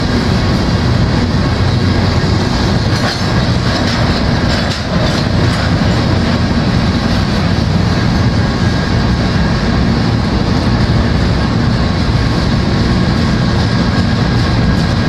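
Empty covered grain hopper cars of a freight train rolling past: a steady rumble and clatter of steel wheels on the rails, with a few sharp clicks about three seconds in and a faint high steady ringing tone above it.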